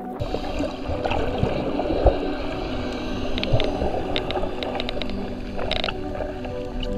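Underwater water noise beside a dolphin: a steady wash with low knocks, and a run of short sharp clicks from about halfway through, which fit the dolphin's echolocation clicks.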